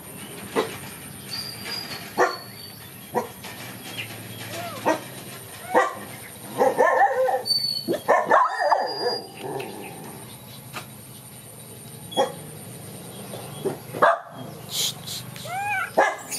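Repeated short, yelping animal calls, about one a second, with a busier stretch of several calls in quick succession about halfway through.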